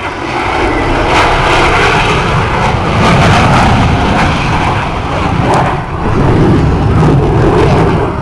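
Blue Angels F/A-18 Hornet flying past, its twin turbofan engines making loud jet noise. The noise builds about a second in, stays loud with a brief dip, and falls off near the end.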